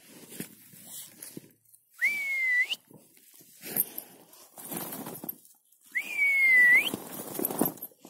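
Two long whistled notes, each held for under a second and ending in an upward flick, about four seconds apart, with rustling and shuffling in between.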